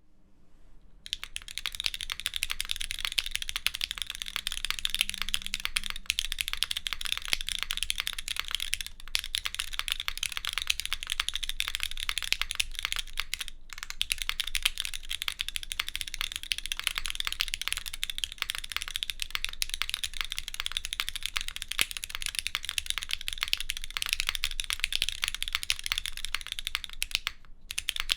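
Fast continuous typing on a mechanical keyboard with diamond-polished, lubed Cherry MX Black linear switches on an aluminium plate and GMK keycaps, a dense stream of bright key clacks. It fades in over the first second or two and pauses briefly three times.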